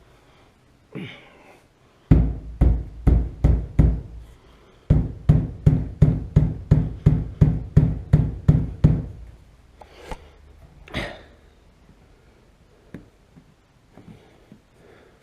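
Repeated dull knocks on the Jaguar MkII's rear window glass and rubber seal as it is struck to seat it in the opening. There is a run of about five, a short pause, then about a dozen more at roughly three a second, followed by two softer rustling sounds.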